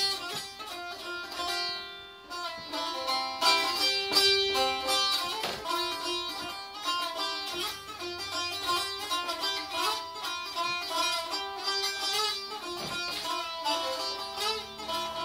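Azerbaijani saz, a long-necked plucked lute, playing a solo instrumental melody as a run of quick plucked notes.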